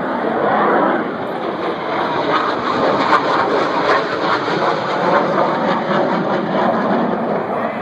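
Military jet aircraft flying past overhead: steady, loud jet engine noise.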